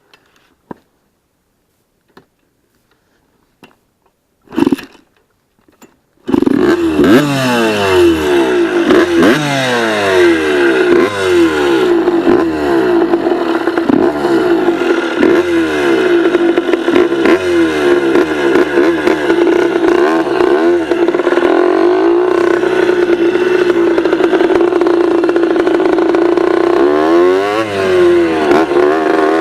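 After a few seconds of near silence broken by clicks and one short loud knock, a dirt bike engine starts running loud, revving up again and again in rising sweeps that drop back and climb as it pulls through the gears.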